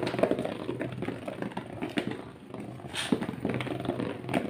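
Homemade cardboard Beyblade tops spinning in a cardboard stadium: a steady rattling whir from their tips running on the floor, with a few sharp clacks as they strike each other, the loudest about three seconds in.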